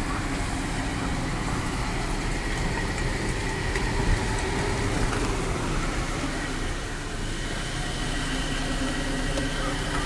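Car running, heard from inside the cabin: a steady engine and road rumble.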